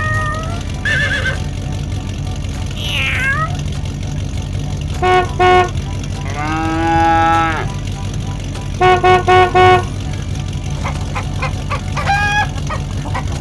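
A truck horn tooting twice, a cow mooing once for about a second and a half, then four quick horn toots, all over a steady low engine rumble.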